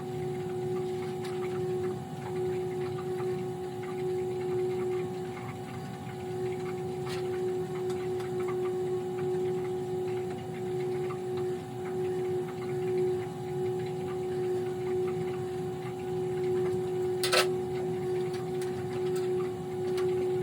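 A steady mechanical hum, one even tone with a fainter one above it, over a low rushing background with faint light ticking; a single short sharp knock about 17 seconds in.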